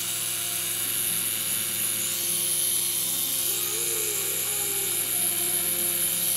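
Tattoo machine running continuously with a steady buzzing hum as the artist works ink into the skin.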